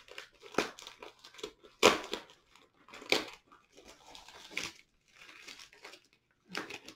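Crinkling and tearing of a white shipping mailer being pulled open by hand, in irregular crackles with the loudest about two and three seconds in.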